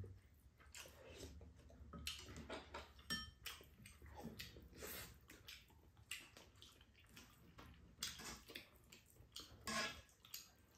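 Faint, scattered eating sounds: kimchi udon noodles being slurped and chewed, with light taps of chopsticks against the pan and bowls.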